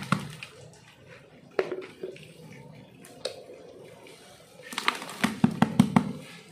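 Plastic flower pots being handled while repotting: a few scattered knocks and scrapes, then a quick run of about half a dozen taps near the end as a small plastic pot is knocked upside down over a larger one to loosen the soil and plant.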